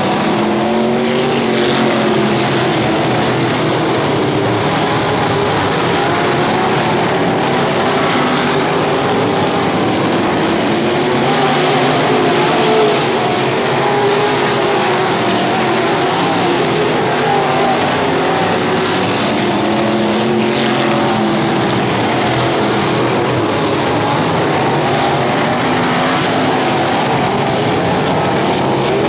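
A field of dirt-track race cars running laps together, engines revving up and easing off as they go round, their pitch rising and falling in waves.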